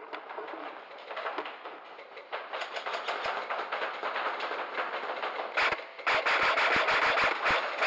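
A dense, rapid crackle of clicks that grows louder, breaking about six seconds in into loud, sharp bangs at roughly five a second.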